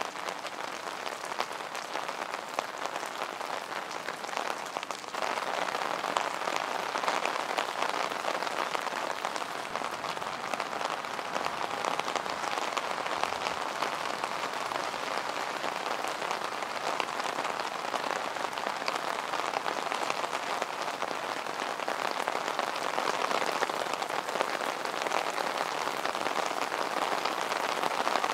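Steady rain falling on wet street pavement: a dense, even patter of drops. It grows louder about five seconds in.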